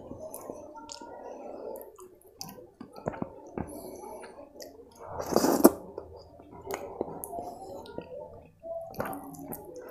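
Close-miked wet eating sounds of khichdi and kadhi eaten by hand: chewing, lip smacks and the squish of fingers mixing the soft rice into the kadhi. There is a louder wet slurping burst about halfway through.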